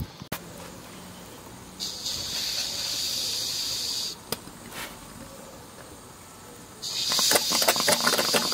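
Stuart Victoria model horizontal steam engine running on steam, with a steady hiss of steam from about two seconds in to about four. From about seven seconds in, a louder hiss with fast, irregular clicking.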